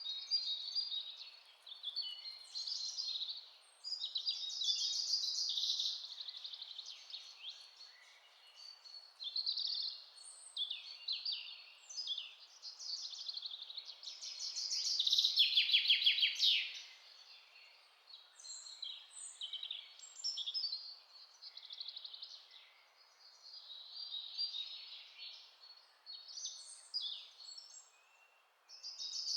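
Several songbirds singing and calling over one another, with overlapping chirps and whistles and a loud, fast trill about halfway through, over a faint steady background hiss.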